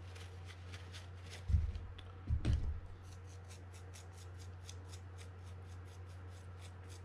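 Small fishing reel parts and tools being handled on a workbench, with two short dull bumps about one and a half and two and a half seconds in, over a steady low hum.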